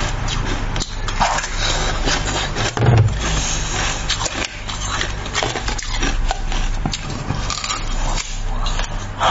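Coloured ice being bitten and crunched close to the microphone: a dense run of cracks and crunches, with a heavier crunch about three seconds in, over a steady low hum.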